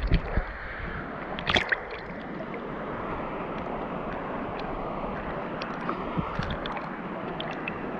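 Steady rush of waterfall water over the cascades, with a sharp splash about a second and a half in and a few small splashes near the end.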